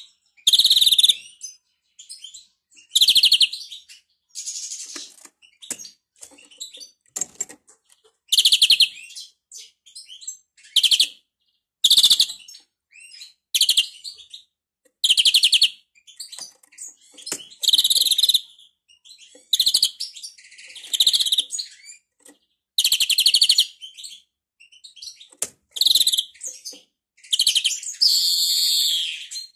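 Greenfinch singing: short, high rattling trills repeated every second or two, with a longer buzzy phrase near the end. The keeper rates this as a faulty song ('bad sound').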